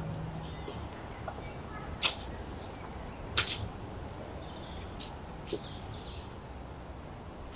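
Plastic trash-bag liner rustling and crackling in a few short bursts as someone rummages through a trash barrel by hand.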